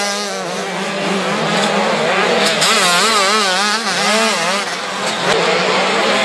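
Motocross bikes racing, engine pitch rising and falling over and over as the riders work the throttle, with more than one bike running at once.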